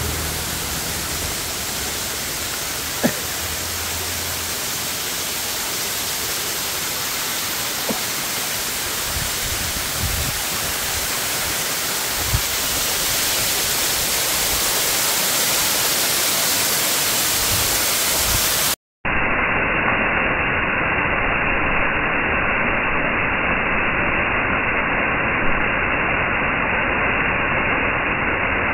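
Steady rushing of a waterfall cascading over rock, an even hiss of falling water. About two-thirds of the way through it cuts out for an instant and comes back duller.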